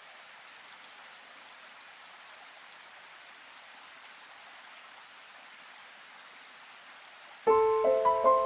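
A faint, steady hiss with no tune, between music tracks. About seven and a half seconds in, gentle solo piano music starts.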